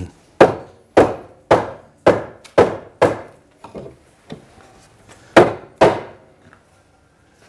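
Mallet knocking a wooden top rail down onto its balusters: sharp wooden knocks about two a second, ten blows in all, the seventh and eighth lighter, with a short pause before the last two.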